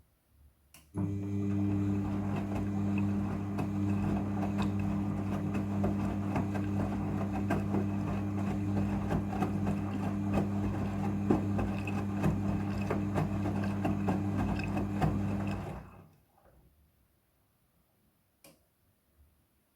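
Front-loading washing machine running during a rinse cycle: a steady electric hum with a dense crackle of water over it. It starts abruptly about a second in and cuts off about fifteen seconds later.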